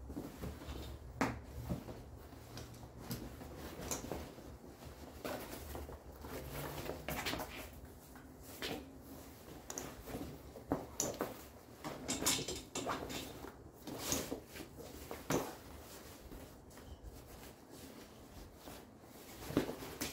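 Heavy multi-layer chainsaw chaps and their nylon leg straps being handled and fastened: fabric rustling with scattered sharp clicks and knocks of strap hardware.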